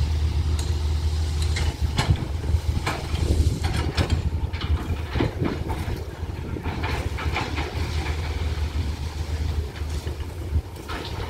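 A heavy diesel engine running steadily at a low rumble, with scattered knocks and clanks throughout.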